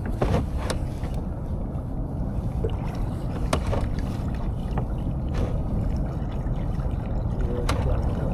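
Kayak on the water: a steady low rush of water and wind, with a few short sharp knocks and clicks, two near the start, one midway and one near the end.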